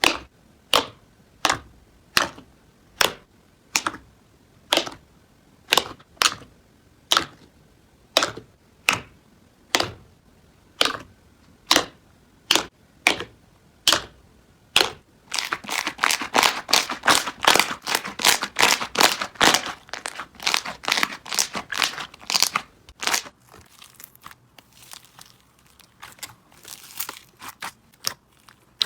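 Slime being pressed and worked by hand, giving sharp popping clicks about one every 0.7 seconds. About halfway through they give way to a dense run of crackling, which thins back to scattered pops near the end.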